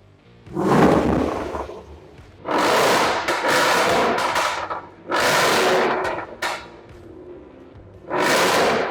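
Land Rover Defender L663 engine revved through its exhaust four times, each rev held for a second or two before dropping back.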